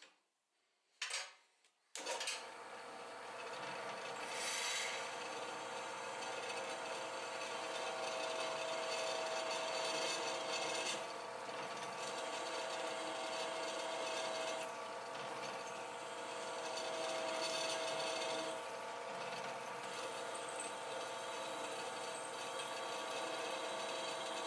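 A drill press starts up about two seconds in, after a couple of clicks, and runs steadily as a small twist drill bores into a clamped metal block. Throughout, an annoying rattling comes from a wrench lying loose on the vibrating drill press table.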